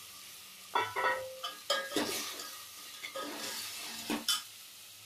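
Steel ladle stirring crabs in an aluminium pot: several sharp metallic clanks and scrapes against the pot and shells, over a low sizzle of onion and tomato frying in oil.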